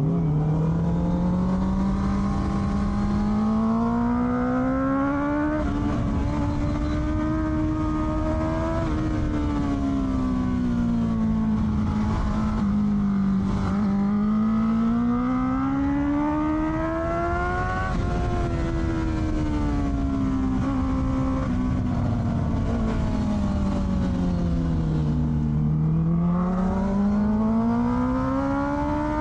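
Honda CBR650R's inline-four engine through an Akrapovic exhaust, revs rising and falling repeatedly as the bike accelerates and rolls off the throttle; the pitch climbs over the first few seconds, sinks slowly to a low point around a quarter of the way in, climbs again, then falls to its lowest near the end before rising once more.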